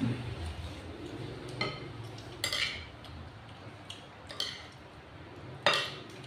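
Spoons clinking and scraping against ceramic plates and bowls during a meal: a handful of separate sharp clinks, the loudest near the end.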